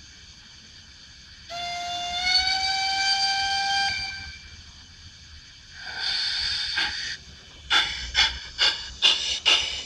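Uhlenbrock sound decoder in an LGB Stainz garden-railway steam locomotive, playing its sounds through the model's speaker: a steam whistle blown for about two and a half seconds, a short hiss of steam about six seconds in, then steam chuffs that quicken as the locomotive pulls away.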